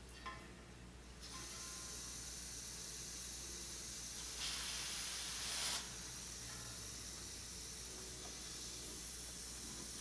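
Refrigerant hose being purged: system pressure pushing air and refrigerant out through a cracked-open fitting at the recovery cylinder, as a steady hiss. The hiss starts about a second in and surges louder for about a second in the middle.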